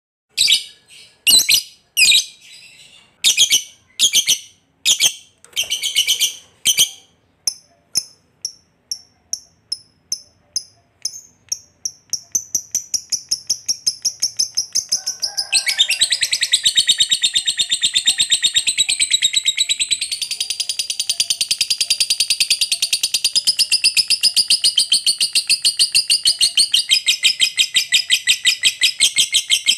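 Lovebird calling: shrill calls about a second apart that quicken into shorter chirps, then about halfway in merge into one long, unbroken rapid chattering trill. This is the long 'ngekek' chatter prized in a fighter lovebird.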